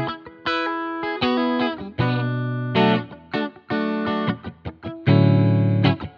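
Donner Hush-X headless electric guitar played on a clean tone in its passive pickup mode. Picked chords are played in a rhythmic pattern: some are left to ring for about a second, and others are choked off short between them.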